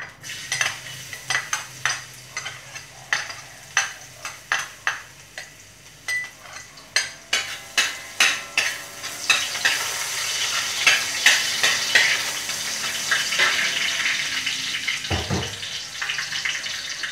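Minced garlic sizzling in hot cooking oil in a metal wok, stirred with a metal spatula that scrapes and taps the pan in quick strokes. The clicks of the spatula dominate the first half; after that the sizzle grows steadier and louder.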